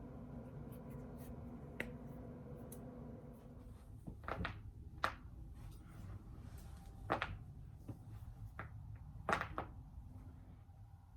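Human joints cracking: a small click about two seconds in, then about five sharp pops spaced a second or two apart.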